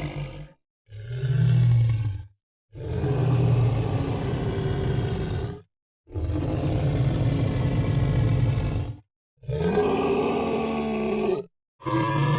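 Monster groan sound effects: a series of low, growling groans, each stopping dead before the next. A short one comes about a second in, followed by three longer ones of about two to three seconds each, one of them rising in pitch, and another starts near the end.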